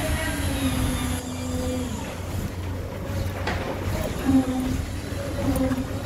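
Concrete pump truck's diesel engine running steadily under load, a low constant drone with a higher hum that fades in and out several times.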